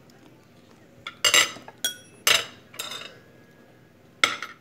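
Cutlery clinking and scraping against a plate of rice and chicken: a handful of sharp clinks with a short ring, starting about a second in, the last one near the end.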